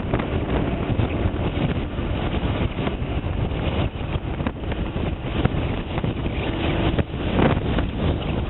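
Wind buffeting the microphone of a motorcycle riding at highway speed, a loud, steady rush with the bike's running and road noise underneath.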